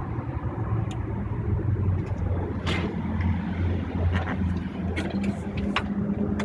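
Car engine idling with a steady low hum, with a few short clicks over it.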